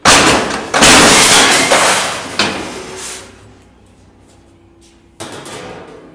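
Sheet-metal guillotine shear chopping through a galvanised steel sheet: a sudden loud metallic crash as the blade comes down, with more clattering crashes over the next few seconds that die away. A single sharp knock follows about five seconds in.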